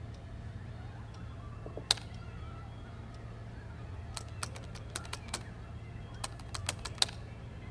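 Computer keyboard being typed on: a single click about two seconds in, then two quick runs of keystrokes, about a dozen in all, over a low steady hum.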